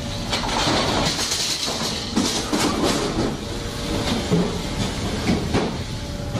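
Fish-processing line machinery running: steel conveyor belts and a packing machine give a steady mechanical din with a hiss and irregular clatters and knocks.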